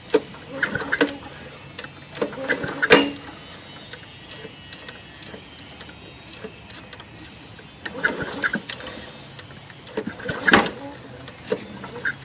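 Walk-behind lawn mower being pull-started: about four tugs on the recoil starter, each a second-long burst of cranking with separate gaps between, and the engine not settling into a steady run.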